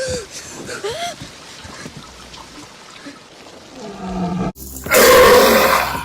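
A man's loud, long, raspy burp, dubbed in as a Tyrannosaurus roar, comes in suddenly after an abrupt cut about four and a half seconds in. Before it there is quieter film soundtrack with two short cries that glide in pitch in the first second.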